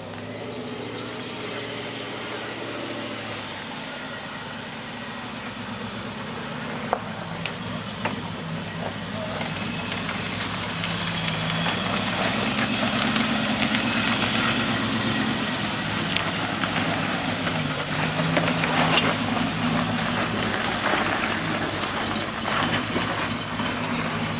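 Land Rover 4x4 engine running at low speed off-road, its pitch stepping up and down as the throttle changes. Scattered knocks and crunches come through as it works over rough ground, and a noisy hiss builds from about a third of the way in.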